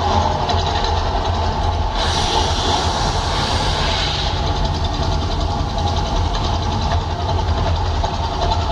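Loud, steady deep rumble from the volcano show's effects, with a hissing rush that rises about two seconds in and lasts about two seconds.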